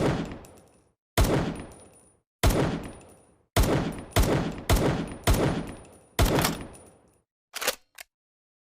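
Makeshift sound effect imitating M1911 pistol shots: eight sharp reports, each with a short echoing tail, spaced about a second apart and quicker in the middle, then two short clicks near the end.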